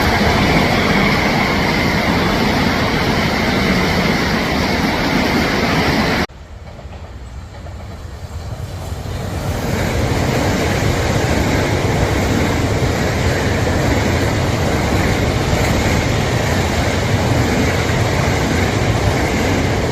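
Southern Class 377 Electrostar electric multiple unit passing at speed: a loud rush of wheels on rail with clickety-clack over the rail joints. The sound drops off suddenly about six seconds in, then builds back up over a few seconds to a steady loud rush.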